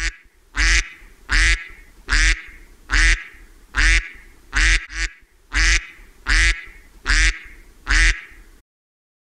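A duck quacking in a steady series of about a dozen loud quacks, roughly one every three-quarters of a second, cutting off abruptly near the end.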